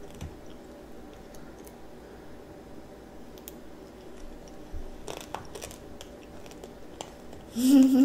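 A child chewing small shards of hard candy coating from candied strawberries, with faint crunches and clicks. Near the end there is a short, louder vocal sound from the child.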